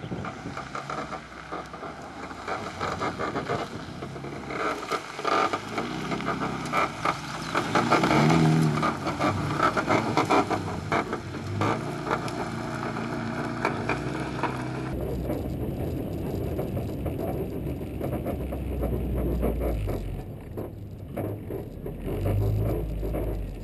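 Rally car engine running hard, revving up and down, with rattling and scraping from the car. About halfway through, the sound changes abruptly to a duller low rumble.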